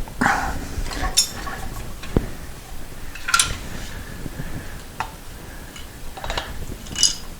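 Scattered metallic clinks and knocks, six or seven in all, of hand work on a motorcycle engine's aluminium cylinder head as it is worked loose after its head bolts are removed.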